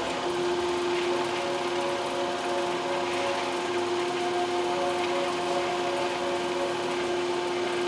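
Spindle drive of a Litton glass-working lathe running steadily at about 60–65 RPM: a steady motor hum of several even tones, which shifts onto a new, stronger pitch just after the start.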